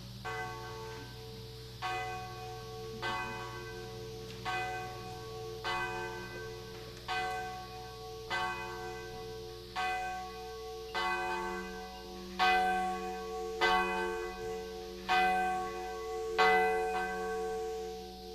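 Church bell tolling: one bell struck about thirteen times, roughly once every second and a quarter, each stroke ringing on under the next, the strokes getting louder in the second half.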